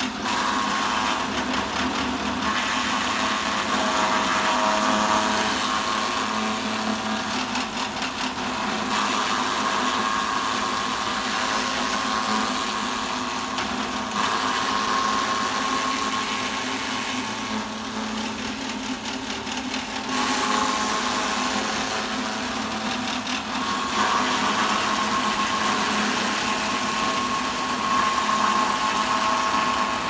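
Motor-driven chaff cutter (forage chopper) running steadily and chopping grass stalks fed into it for cattle feed. The whine shifts a little in strength as armfuls of stalks go through.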